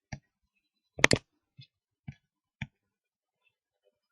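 Computer mouse clicking: a few sharp single clicks and a loud double click about a second in.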